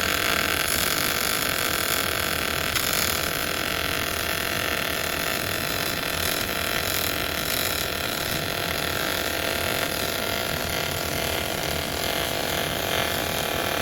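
TIG welding arc burning steadily: a constant hiss with a steady buzz in it, which cuts off suddenly at the end as the arc is broken.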